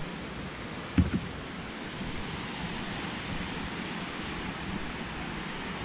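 Steady wash of sea surf mixed with wind on the microphone, with one short thump about a second in.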